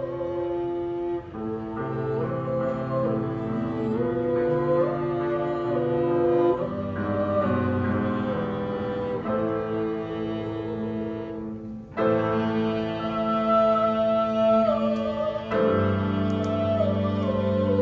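Violin and cello playing a slow piece of long, sustained bowed notes, with a short break about twelve seconds in before the next chord comes in.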